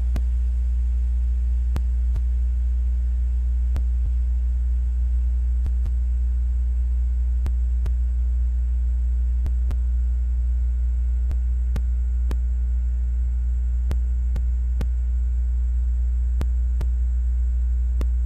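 Steady, loud low electrical hum, with faint, irregular clicks every second or two.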